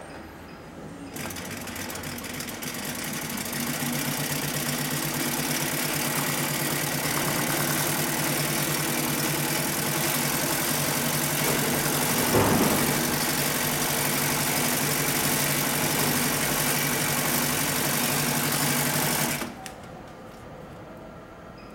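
Industrial walking-foot sewing machine stitching heavy tarp fabric: it picks up speed over the first few seconds, runs at a steady rapid stitching rhythm, and stops suddenly near the end. A brief louder knock sounds about twelve seconds in.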